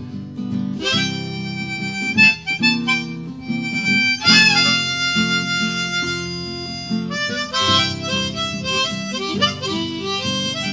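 Harmonica played in a neck holder, sounding a run of held and changing notes over strummed acoustic guitar chords.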